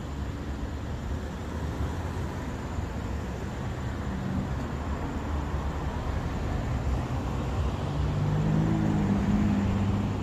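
Low outdoor traffic rumble from a motor vehicle engine, which rises in pitch and grows louder about eight seconds in as a vehicle comes closer.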